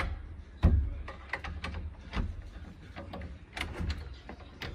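Key being worked in a wooden door's lock, with the metal lever handle rattling: a string of metallic clicks and knocks, and a heavier thump about half a second in.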